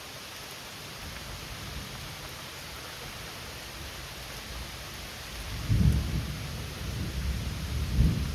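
Steady rain hiss, then about five and a half seconds in a close thunderclap breaks into a deep rolling rumble, with louder surges about a second and two and a half seconds after it starts.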